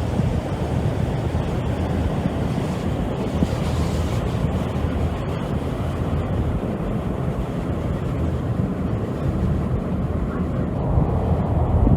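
Harbour ferry under way: steady wind buffeting the microphone over the rush of water and the low drone of the ferry's engine.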